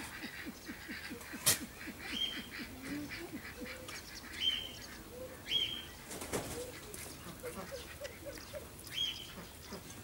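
Farm birds calling off-screen: a rapid string of short low calls in the first two seconds, then four short high-pitched calls spread through the rest. Two sharp clicks stand out, one about a second and a half in and one past the middle.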